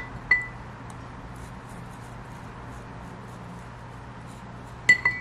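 Toothbrush scrubbing a model engine part in a glass dish of paint stripper, with faint bristle scratching. The part or brush knocks against the glass twice near the start and several times in quick succession near the end. Each knock rings briefly like struck glass.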